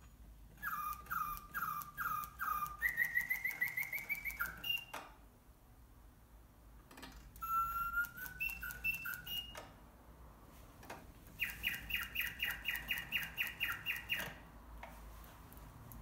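A c. 1870 French singing-bird cage automaton, its clockwork-driven bellows blowing a sliding whistle to pipe birdsong in three phrases. The first is a few repeated falling chirps leading into a fast rising trill, the second a handful of short rising notes, and the third a rapid run of chirps. There are soft clicks between the phrases.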